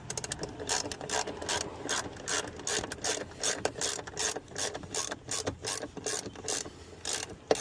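Hand ratchet wrench clicking as a bolt is tightened by hand, a quick run of sharp clicks, roughly four a second.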